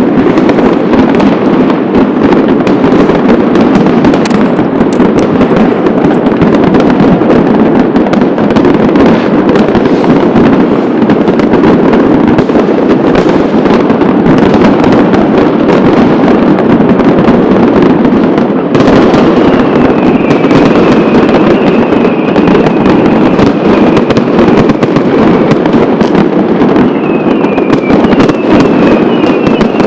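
Loud, dense barrage of fireworks and firecrackers, countless bangs and crackles overlapping into one continuous din. From about two-thirds of the way in, a thin high whistle wavers above it.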